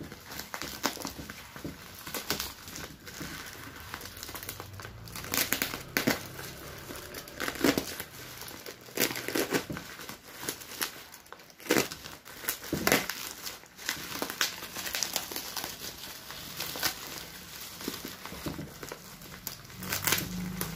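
Black plastic parcel wrapping crinkling and crackling irregularly as hands handle it and slit it open with a utility knife.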